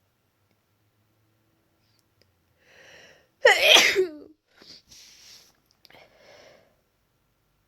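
A woman's single loud, voiced sneeze, falling in pitch and set up by a short breathy intake about three seconds in. Two quieter breathy sounds follow. The sneeze is deliberately induced, from a congested, tickly nose.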